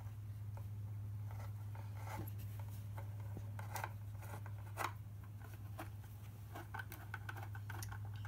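A hand screwdriver turning a screw into the wood of a birdhouse kit: scattered short scrapes and small clicks, over a steady low hum.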